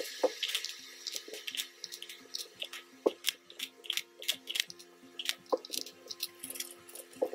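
Loose coins, pennies and silver coins, clicking and clinking against each other as they are handled and sorted by hand, a quick irregular run of small clicks, with faint steady tones underneath.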